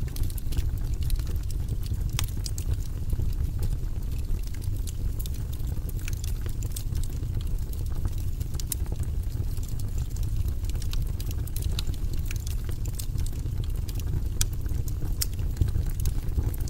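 Wood burning in a fireplace, crackling: irregular sharp pops and snaps over a steady low rumble.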